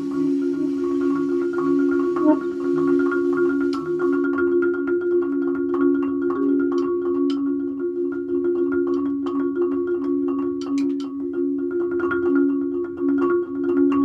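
Free-jazz improvisation on marimba and alto saxophone. Two pitches are held steadily throughout, under scattered sharp clicks of yarn mallets striking the marimba's wooden bars.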